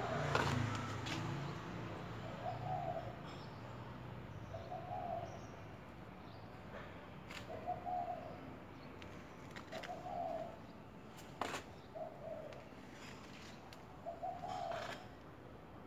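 A dove cooing, short low coos repeated about every two seconds, with a few sharp clicks among them.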